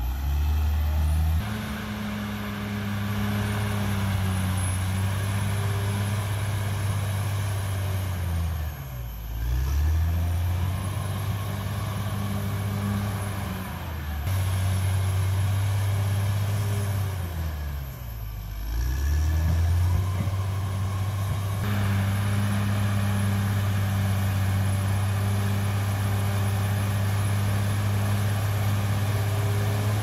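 CAT D6R XL bulldozer's diesel engine running under load as it pushes dirt, its pitch dropping sharply and picking back up twice, about nine and eighteen seconds in.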